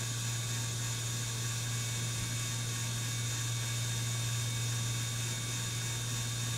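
A steady low hum with a constant hiss, unchanging throughout.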